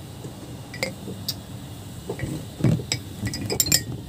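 Metal clinks and knocks from clutch booster parts being handled on a wooden workbench: the piston, its rod and the return spring. A cluster of bright, ringing clinks comes near the end.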